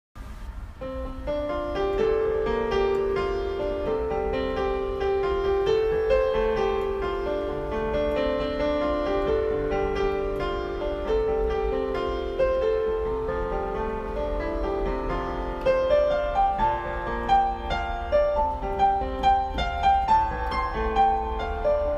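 Background piano music: a melody over sustained chords, turning to quicker, higher notes about two-thirds of the way through.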